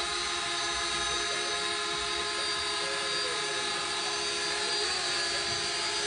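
Small toy quadcopter drone hovering, a steady buzzing whine with several held tones from its spinning rotors.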